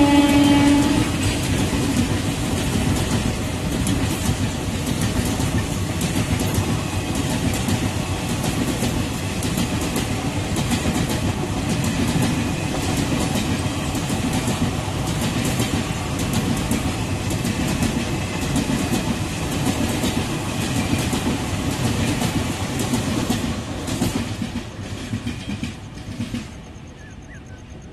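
An express passenger train's coaches run past at speed, a dense steady rattle with wheels clicking over rail joints, that dies away over the last few seconds. The WAP-4 electric locomotive's horn ends about a second in.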